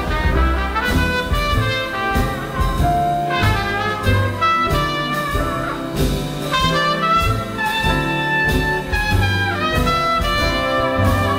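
Trumpet playing a jazz solo in a slow swing ballad, with the band accompanying underneath.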